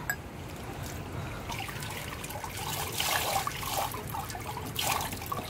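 Swimming-pool water trickling and splashing at the pool edge as a swimmer moves in the water, getting busier from about a second and a half in with small surges of splashing.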